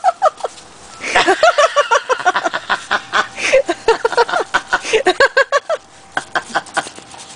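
A litter of young puppies squealing and whimpering while they nurse and jostle at their mother, many short high-pitched cries overlapping in quick succession. The cries start about a second in and thin out near the end.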